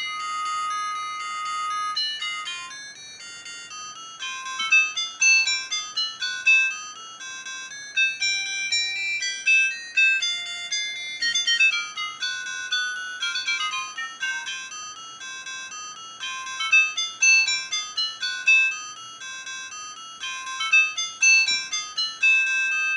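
Siemens CL50 mobile phone playing one of its built-in ringtones: a quick melody of short electronic notes, thin and high with no bass, with fast runs of notes partway through.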